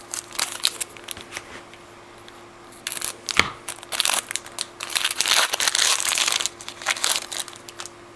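A football trading-card pack's wrapper being torn open and crinkled: a few light clicks at first, then from about three seconds in a long stretch of crackly tearing and crumpling, with one soft knock early in it.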